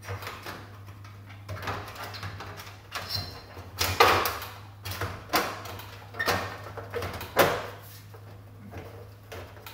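Sheet-metal wiring cover of a 4-foot tube-light fixture being pushed and snapped back into place: a string of about a dozen sharp clunks and snaps, the loudest about four seconds in and again about seven seconds in.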